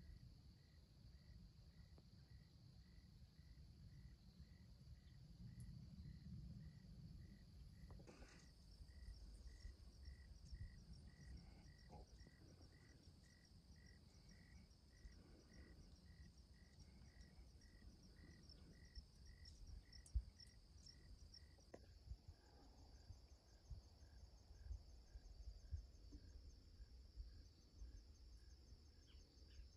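Faint insects: crickets chirping slowly and evenly, a little more than once a second, over a continuous high trill, with a low rumble underneath.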